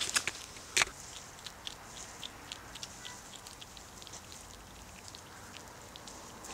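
Hedgehogs chewing dry pellet food: irregular sharp crunching clicks, several a second. The loudest come right at the start and just under a second in.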